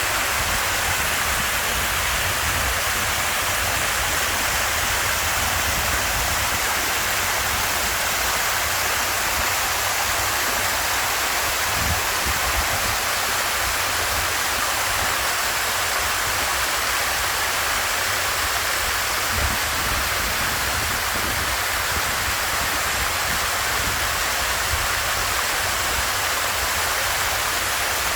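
Water pouring steadily down a stepped artificial cascade waterfall: a continuous, even rushing with a low rumble underneath.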